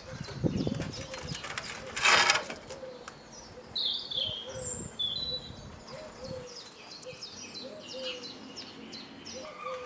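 Garden birds singing, with many short chirps and a line of short repeated lower notes throughout. A brief loud rustle or scrape comes about two seconds in, after some softer rustling at the start.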